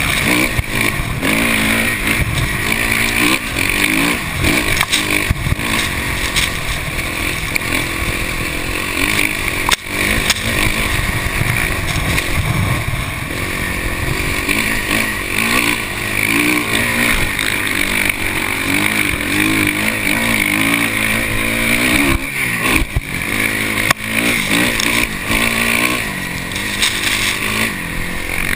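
Dirt bike engine revving up and down repeatedly as the bike is ridden hard across sand, heard up close from the handlebars.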